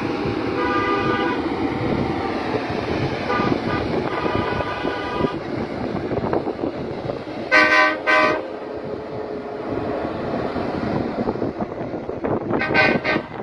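Heavy truck running with steady engine and road noise while an air horn blows two short double blasts, one about halfway through and one near the end.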